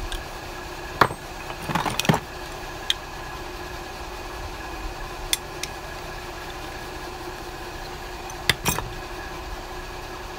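Metal hand tools, a small wrench and pliers, clicking and knocking against a small plastic fuel pump as it is turned over and worked on. There are a few sharp clicks: one about a second in, a cluster near two seconds, and a pair near the end. A steady mechanical hum runs underneath.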